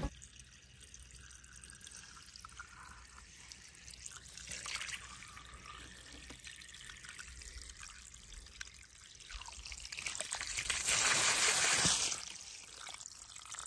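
Water pouring and splashing onto a die-cast toy car in a muddy patch of grass. It builds about ten seconds in and stops suddenly a couple of seconds later. Before that there are only faint handling noises.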